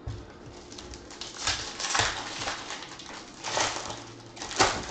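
Foil trading-card pack crinkling and tearing as it is opened by hand, in several short crackling bursts, the sharpest near the end.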